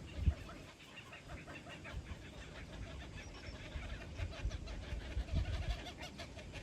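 Birds calling in rapid runs of short repeated notes, with irregular low rumbles underneath, loudest just after the start and again around four to six seconds in.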